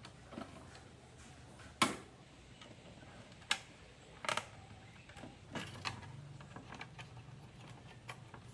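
Sharp plastic clicks and knocks from a PC case's black plastic front bezel as it is handled and pressed on against a wooden table. About half a dozen separate clicks at irregular moments, the loudest about two seconds in.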